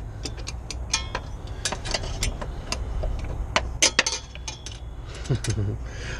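Screwdriver clicking and clinking against the metal clamps and bellows of a truck's EGR flex pipe as they are pried loose: irregular sharp metallic ticks and taps, some with a short ring.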